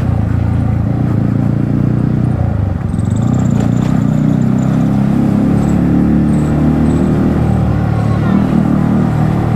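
Yamaha MT-15's 155 cc single-cylinder engine running at steady, low revs through an aftermarket Akrapovic exhaust while riding.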